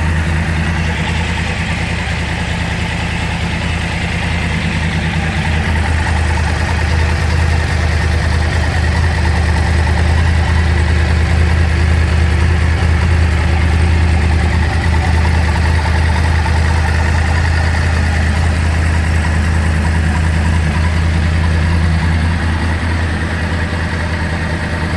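Yamaha YZF-R1 inline-four engine idling steadily.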